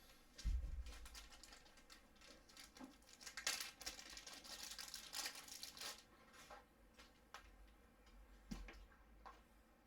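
Faint handling noise from a phone and USB-C audio adapters: a soft bump about half a second in, rustling and crinkling through the middle, and a few light clicks near the end.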